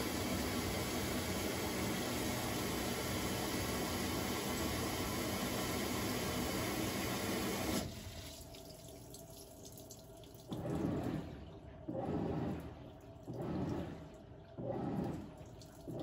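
Samsung top-load washer filling, a steady stream of water pouring into the tub, cutting off abruptly about eight seconds in. A few seconds later a regular swishing starts, roughly one every second and a half, as the washer begins to agitate the load.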